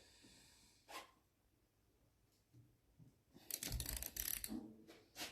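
A single sharp metallic click about a second in, then a quick run of small clicks and rattles lasting about a second near the end: hand tools and parts being handled while a Honda GX340 carburetor is taken apart.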